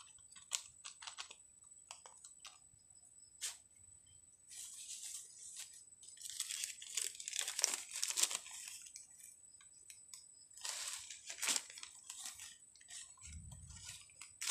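Black plastic seedling polybag crinkling and soil crunching as hands pack earth into the bag. The sound comes as scattered clicks and crackly rustles, busiest from about four to nine seconds in and again around eleven seconds.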